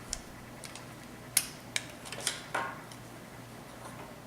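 Hard plastic parts of an RC boat stand being handled and snapped together: a few scattered clicks and knocks, the sharpest about a second and a half in, with a short scrape of plastic about a second later.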